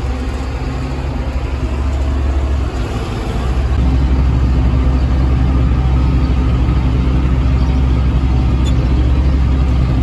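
Tractor engine running steadily while driving a TMR feed mixer wagon that is unloading mixed feed onto the feed alley. The running gets louder about three and a half seconds in.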